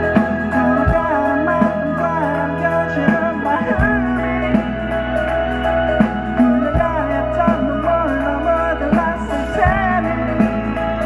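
A rock band playing live at a slow tempo: held bass notes, electric guitars carrying a wavering melodic line, and heavy drum hits about every three seconds.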